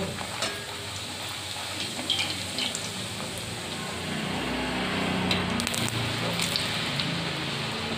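Luchi deep-frying in hot oil in an iron kadai: a steady sizzle. A few light clicks of a perforated metal slotted spoon against the pan come through it.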